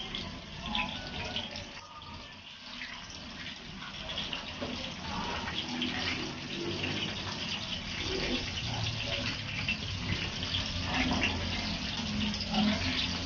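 Whole bisugo (threadfin bream) frying in hot oil in a pan: a steady sizzle dotted with small pops and crackles as the fish are turned.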